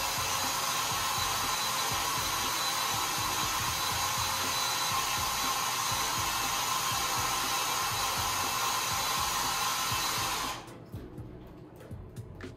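Power drill running at steady speed, spinning a paint-covered canvas, with a steady whir and whine. It stops suddenly about ten and a half seconds in.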